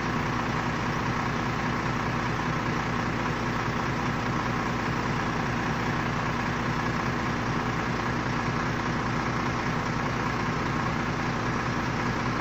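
Renault Magnum truck's diesel engine idling steadily.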